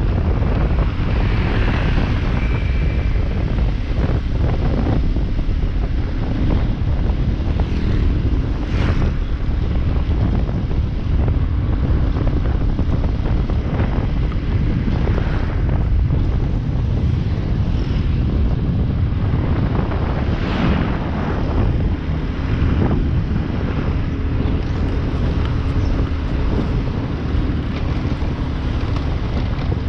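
Wind buffeting the microphone of a moving motorcycle: a steady, heavy low rumble, with the motorcycle's engine running underneath as a faint steady hum.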